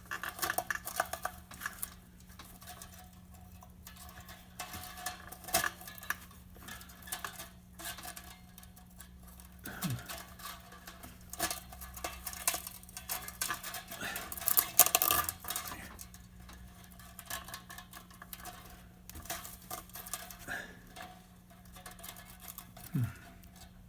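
Small irregular metallic clicks, ticks and scrapes of flat pliers working wire J-clips and a kiln heating element coil into the kiln lid, with a busier cluster of clicks about halfway through.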